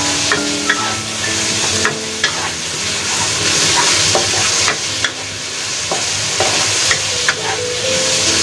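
Sliced marinated beef sizzling in a hot nonstick wok, stirred and turned with a wooden spatula, with scattered light knocks of the spatula against the pan.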